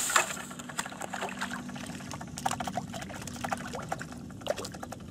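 A hooked perch splashing at the water's surface as it is pulled in on a float rod: a sudden splash at the start, then a run of irregular smaller splashes.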